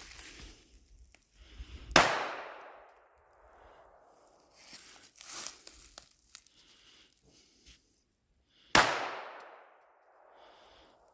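Two gunshots about seven seconds apart, each with a long echoing decay, with a few fainter knocks between them.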